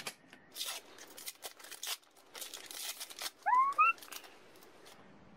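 Wrapping paper crinkling and tearing as a small gift box is unwrapped by hand. About three and a half seconds in come two short rising chirps, the loudest sounds.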